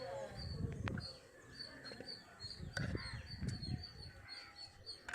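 Birds calling outdoors: a short high chirp repeats about three times a second, with a few lower calls and some dull low sounds.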